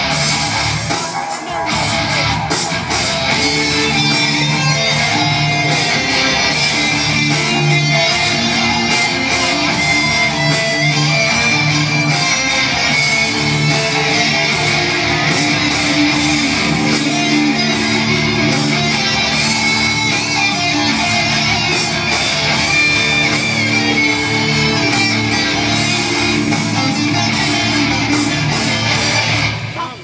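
Loud guitar-led rock music playing over a hall sound system, with long sustained notes.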